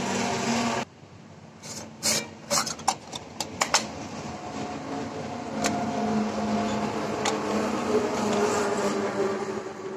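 Clicks and knocks of a hard-plastic solar torch casing being handled and turned over, a quick run of them between about two and four seconds in, then a couple of lone clicks over a steady low hum.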